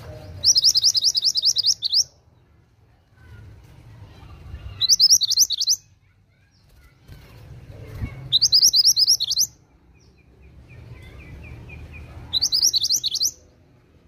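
Mantenan (a minivet) singing: four bursts of rapid, high trilled notes, each about a second long and a few seconds apart.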